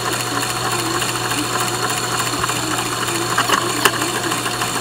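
Lego shredder running: a steady mechanical whir of plastic gears and cutter rollers, with irregular clicks and crackles as it grinds up aluminum foil bits.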